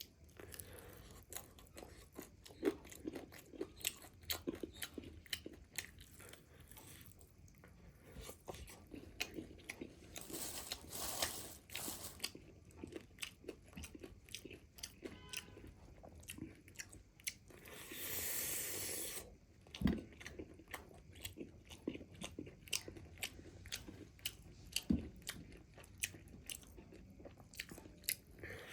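Close-miked biting and chewing of crispy fried chicken leg pieces: irregular crunches and wet chewing, with a few denser stretches of crunching.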